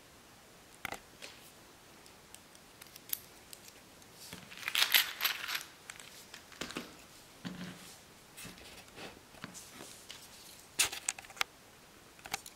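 Small clicks and taps from handling an Extrema Ratio BD4 Lucky folding knife and a precision screwdriver on a cutting mat during disassembly, with a louder scraping, rattling stretch about five seconds in and two sharp clicks near the end.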